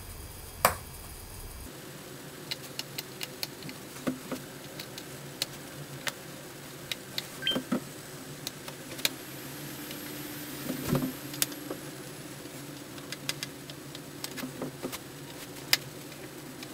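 Scattered small, sharp clicks and ticks of a precision screwdriver working the screws in a MacBook Pro's aluminium bottom case, with metal tapping on metal at irregular moments.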